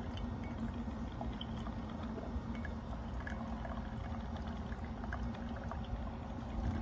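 A 650-watt Black & Decker drip coffee maker brewing, with hot water gurgling and trickling through into the pot. Under it runs the steady hum of the Jackery 500 power station's cooling fan, working hard near its maximum output.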